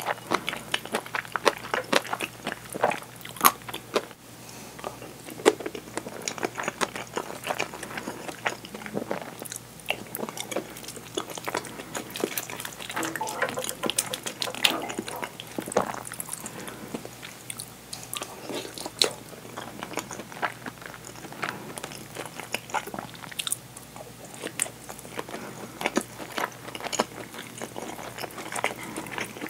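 Close-miked eating of curry and rice: a wooden spoon scraping and tapping in a ceramic bowl, with chewing, biting and occasional crunching.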